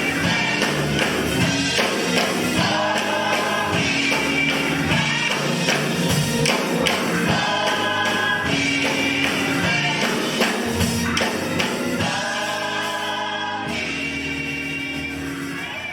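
Gospel choir singing over a steady beat, with tambourine, fading out near the end.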